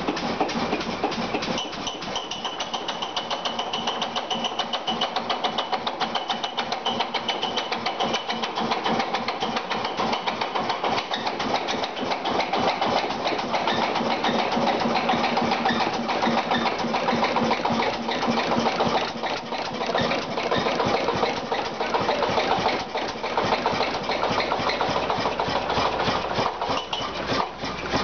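1948 Duvant RF stationary engine running steadily with a rapid, even beat, just restarted after thirty years out of use.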